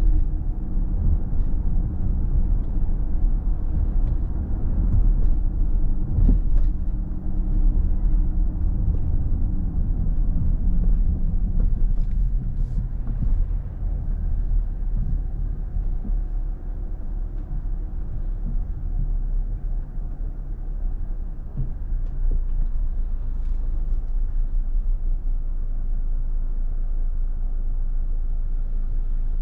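Car driving on a city street: steady low road and engine rumble, a little quieter and steadier in the second half as the car slows behind traffic.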